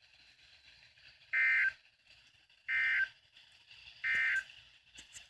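EAS SAME digital data signal: three short buzzing data bursts about 1.3 seconds apart, the End of Message code that closes the severe thunderstorm warning.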